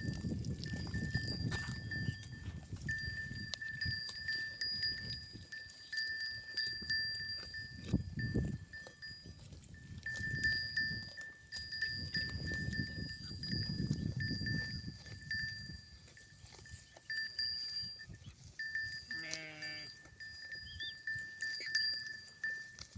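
Sheep bells clanking irregularly as a flock moves, with one sheep bleating once about nineteen seconds in.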